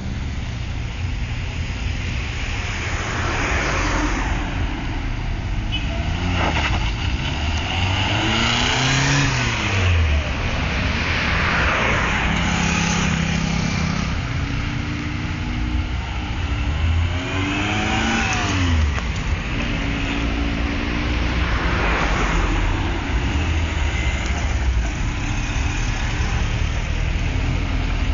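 A column of classic FSO saloon cars driving past one after another, each engine swelling up and then falling in pitch as it goes by.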